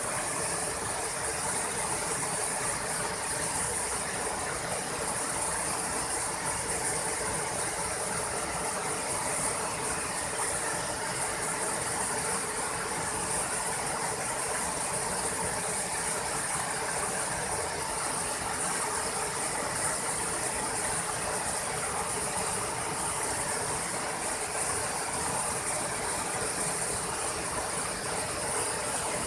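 A waterfall pouring over wide rock ledges into a pool: a steady, even rush of falling water with a constant high hiss on top.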